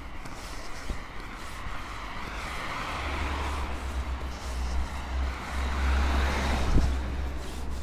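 Cars driving past on an asphalt street: tyre and engine noise swells and fades about three seconds in, then again, louder, near the end as a second car goes by.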